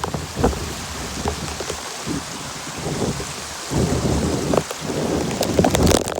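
Heavy rain falling, with scattered drop hits and a low rumble that swells about four seconds in and again near the end.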